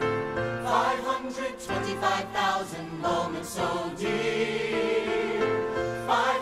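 A song with several voices singing together over instrumental backing.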